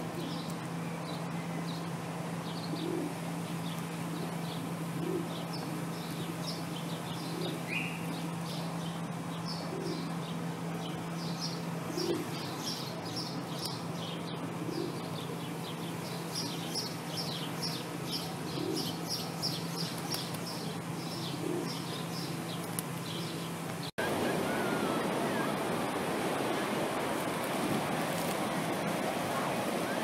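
Feral pigeons cooing softly every few seconds, with small birds chirping in rapid high series and a steady low hum underneath. About 24 seconds in, this cuts to the rushing noise of surf breaking on a beach.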